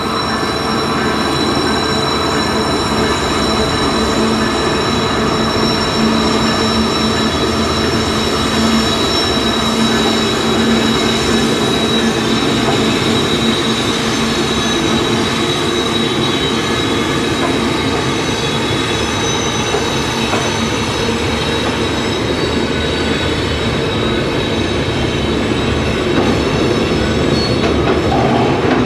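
A train rolling past steadily, with a high, steady wheel squeal over the rumble of the cars.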